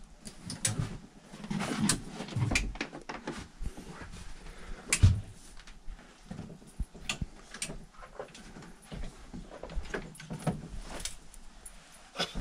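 Scattered knocks, clicks and rattles of things being handled and bumped, with one louder thump about five seconds in.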